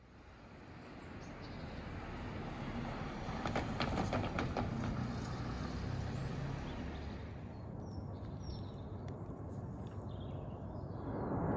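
Road traffic passing, with a quick run of clicks about four seconds in. From about eight seconds in it quietens and a few faint high chirps come through, then a louder rumble builds near the end.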